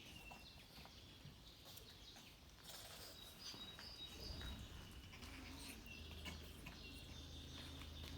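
Faint outdoor ambience with small birds chirping briefly a few times, under scattered light clicks.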